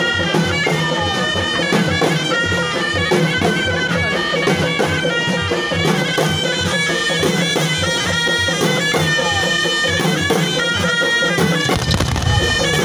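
Moroccan Hiti folk music: ghaita shawms play a sustained, reedy melody over a fast, steady beat on hand-held frame drums. A low rumble comes in near the end.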